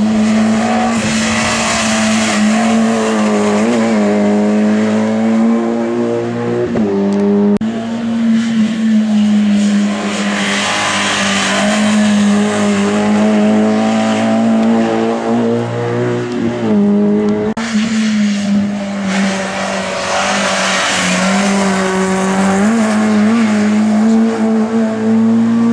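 Racing car engine held at high revs, its note dipping briefly and recovering every few seconds, with bursts of tyre squeal.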